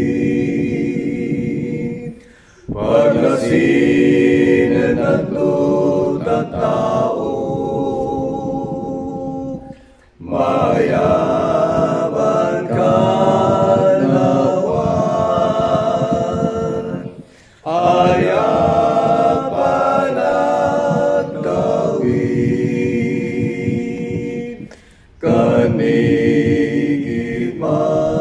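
One man's voice multi-tracked into several-part a cappella harmony, singing an Ilocano hymn in long sustained phrases broken by brief pauses about every seven to eight seconds.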